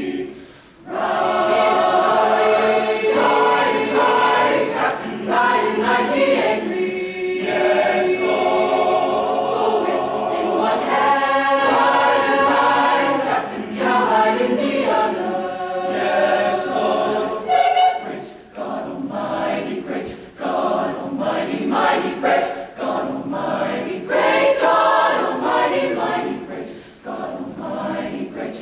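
Mixed high-school choir of men's and women's voices singing together in several parts, phrase after phrase, with brief breaks between some phrases.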